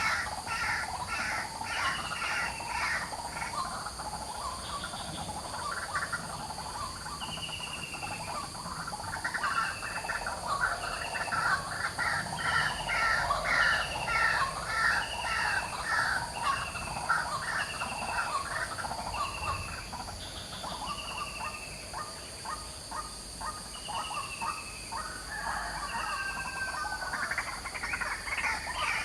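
White-breasted waterhen calling noisily, long runs of fast repeated harsh notes that swell and ease. Another bird gives a short falling whistle about once a second through the middle.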